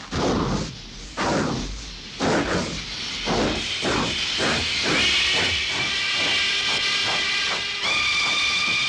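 Steam-train chuffing, slow at first and speeding up, with a steady whistle-like tone joining in about halfway through and growing louder near the end.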